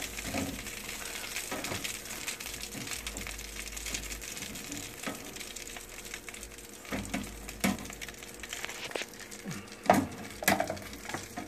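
Hot chicken wings being turned over on a metal air-fryer pan: scattered clinks and taps against the pan over a faint sizzle, with the sharpest clinks near the end.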